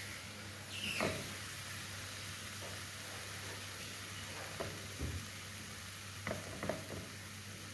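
Marinated chicken fillets sizzling steadily on a hot oiled grill pan, with a few light taps along the way.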